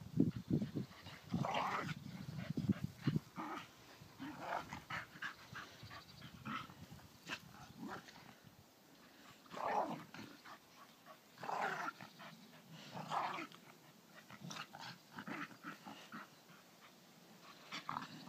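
Soft-coated Wheaten Terriers, an old dog and a puppy, play-fighting: growls, heaviest in the first few seconds, then scattered short yips and growls every second or two.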